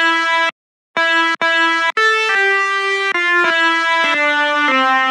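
Basuri telolet multi-tone bus horn playing its tune. Three short notes on the same pitch with brief gaps, then a higher note and a run of notes stepping downward.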